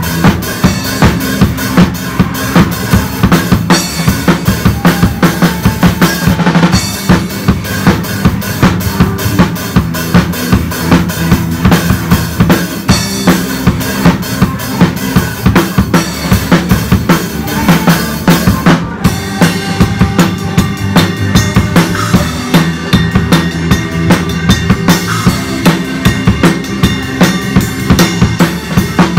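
Drum kit played live in a steady groove: bass drum, snare and cymbals, with the rest of the band playing underneath. The cymbal wash breaks off briefly about two-thirds of the way through, then the beat carries on.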